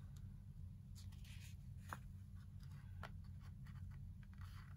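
Faint, light scratching and small ticks of hands handling a plastic stencil laid over paste-covered card, over a steady low hum.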